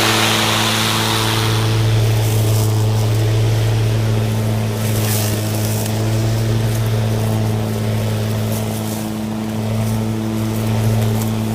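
EGO 56V battery-powered lawn mower running with its blade spinning at a steady speed, a constant low electric hum that holds one pitch.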